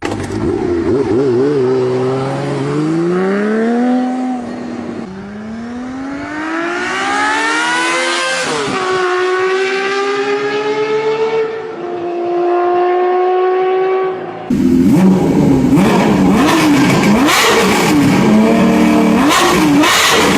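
Honda CBX 1050's air-cooled inline-six engine accelerating hard through the gears, its note climbing in pitch and dropping at each upshift before holding a steady cruising tone. About fourteen seconds in it cuts to a louder stretch of quick throttle blips.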